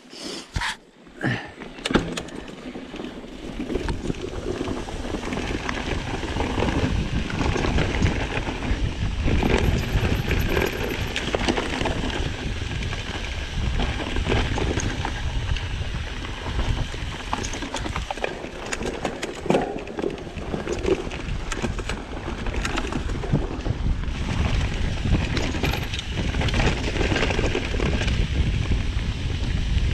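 Mountain bike riding over a rough trail: tyre rumble, rattling clicks from the bike and wind on the microphone, building up over the first few seconds as the bike gathers speed.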